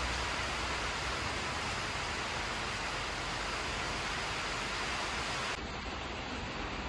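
Steady rushing noise with a low hum underneath; it drops a little in level and loses its top end about five and a half seconds in.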